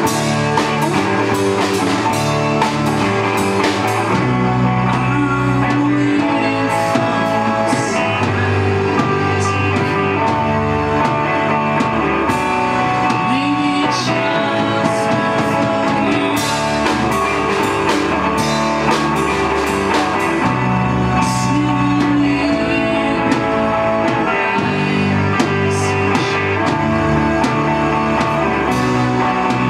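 Rock band playing a song live, with drums keeping a steady beat under the pitched instruments.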